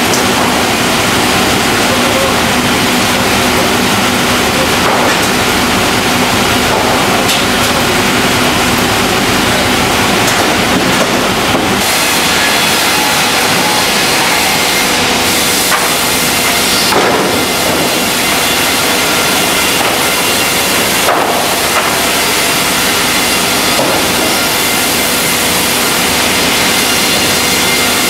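Serra horizontal bandsaw mills and resaws running in a sawmill: a loud, steady mix of motor hum and cutting and conveyor noise, with a few faint knocks of wood. The low rumble thins out a little under halfway through.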